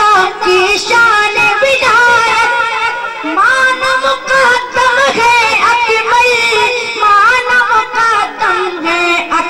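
A boy singing a naat, an Urdu devotional poem in praise of the Prophet, drawing out long ornamented notes whose pitch sways and glides.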